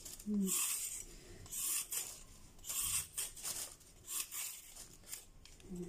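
Raw carrot being peeled with a metal kitchen blade: repeated rasping scrapes, about one a second.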